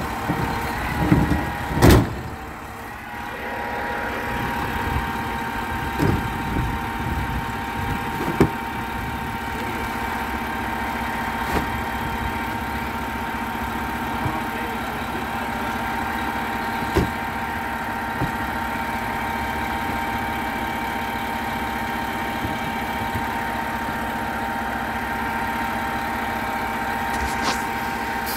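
Garbage truck engine idling with a steady whine. A loud knock comes about two seconds in, then a few lighter knocks scattered through the first half.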